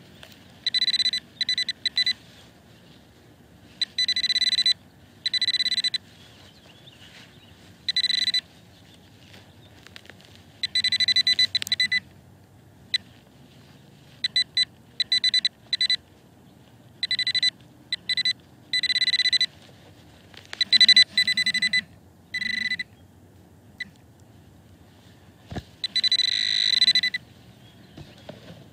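Whites Bullseye TRX metal-detecting pinpointer sounding its steady high beep in on-and-off bursts of varying length as it is probed around a dug hole, signalling that the buried target is close but still in the soil.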